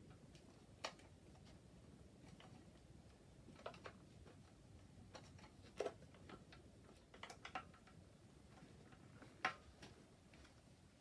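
Faint, irregular light metal clicks of a bicycle chain and its link being handled and fitted onto a sprocket, about eight clicks in all. The loudest come about halfway through and near the end, over quiet room hum.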